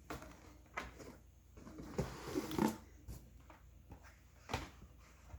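Handling noise from unpacking boxed die-cast model cars: scattered light taps, clicks and rustles of cardboard and plastic packaging.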